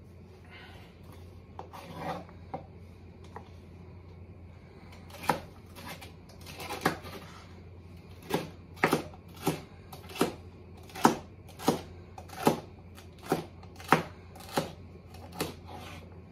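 Chef's knife chopping celery on a cutting board: sharp knocks of the blade hitting the board, a few scattered at first, then a steady run of about one and a half a second in the second half, over a steady low hum.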